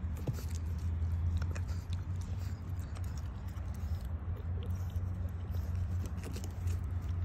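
English bulldog puppy mouthing and chewing on a person's finger, with small clicks and scuffs scattered throughout, over a steady low hum.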